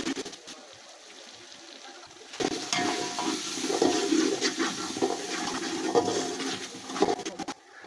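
Water pouring and sloshing: faint at first, then louder from about two and a half seconds in, with a few knocks, and stopping just before the end.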